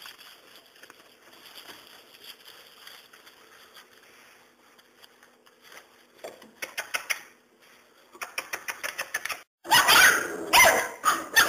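Five-week-old Serbian Mastiff x Boxer bandog puppies playing in straw: faint rustling, then runs of quick pulsing growls, and loud puppy yaps and growls from about ten seconds in.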